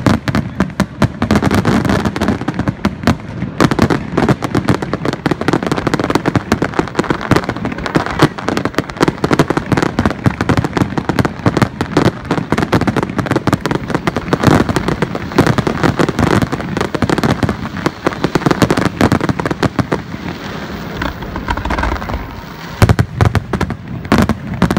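Fireworks display: a rapid barrage of aerial shell bursts, dense overlapping bangs and crackling. Near the end it thins into a few separate loud bangs.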